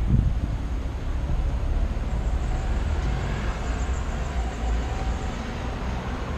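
Steady low rumble of a moving vehicle with road noise, opening with a brief low thump.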